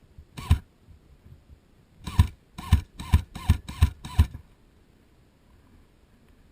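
Airsoft gun firing single shots, each a sharp crack with a low thump: one shot, then after a pause six more in quick succession, about two and a half a second.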